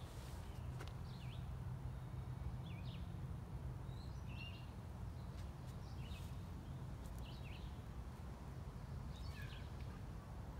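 Small birds chirping in short, high calls about once a second over a steady low outdoor rumble.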